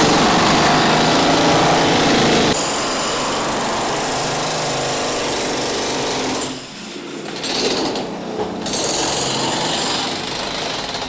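Loud machinery running. Its sound changes suddenly about two and a half seconds in, and it drops away briefly about six and a half seconds in.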